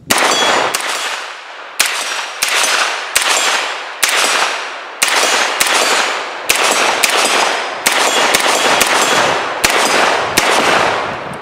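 Stern Defense 9mm AR pistol with a 6-inch barrel and flash can firing a steady string of 124-grain full-metal-jacket rounds, shots about half a second apart, each followed by a ringing tail. The steel targets at 50 yards clang with the hits.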